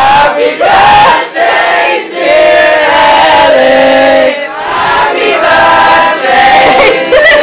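A group of people singing loudly together, several voices holding long notes that slide between phrases, with short breaks about two and four and a half seconds in.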